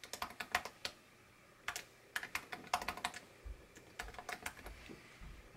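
Typing on a computer keyboard: quick runs of key clicks in three short bursts with brief pauses between them.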